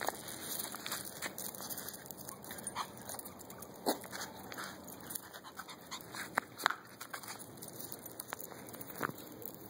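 Puppies and a small dog playing, with a handful of short, high yelps scattered through; the loudest come about four and seven seconds in.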